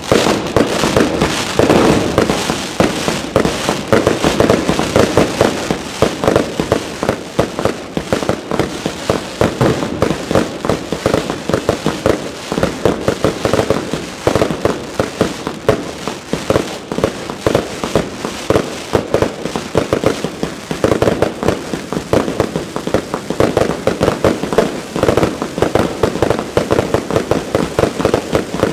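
Aerial fireworks going off in a dense, unbroken barrage of bangs and crackles.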